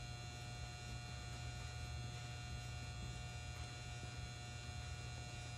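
Steady low electrical hum with a few faint constant higher tones over it, unchanging throughout.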